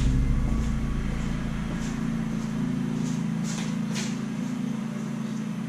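Steady low hum with a few faint footsteps and light clicks on a concrete garage floor as a person walks.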